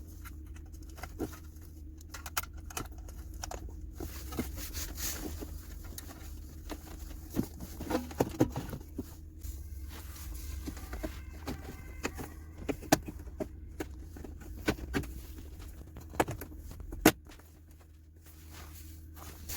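Scattered clicks, taps and rattles of hands working on car interior parts, over a steady low hum that cuts off right after a sharp click near the end.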